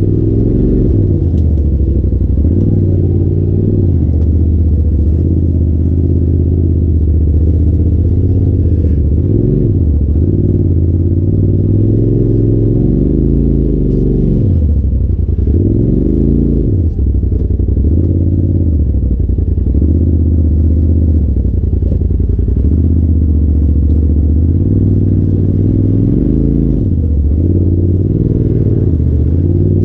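Polaris RZR side-by-side's engine running on the trail under changing throttle, its pitch dropping off and climbing back several times, with light rattling over the top.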